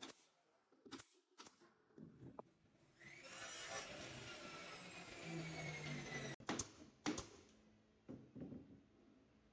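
A few light knocks of tools and wood being handled, then a power tool runs for about three seconds with its pitch falling, stops abruptly, and is followed by two sharp knocks.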